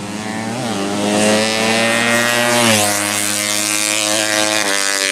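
Drag-racing underbone motorcycle engine running at steady revs, its pitch rising slightly early on and stepping down twice, near three seconds in and again near the end.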